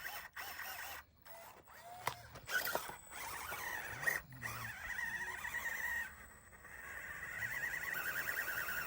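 Micro 1/24-scale RC crawler's small electric motor and gearbox whining as it climbs a dirt hill, the pitch wavering up and down with the throttle. A few sharp clicks and scrapes come about one to three seconds in, and the whine briefly drops out around six seconds in.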